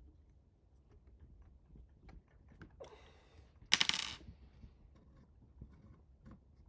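A small metal piece clatters onto a hard surface and rings briefly, a little over halfway through, just after a short scraping rustle. Light clicks of handling parts come before and after.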